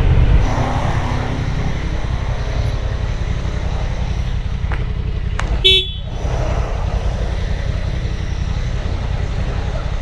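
Honda Transalp 750 motorcycle's parallel-twin engine running with a steady low rumble at town speed. A short horn toot sounds a little before six seconds in.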